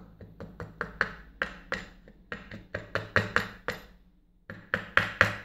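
Brass mortise lock cylinder housing knocked repeatedly against a wooden pinning tray: a quick run of sharp wooden taps, about four a second, with a short pause near the end.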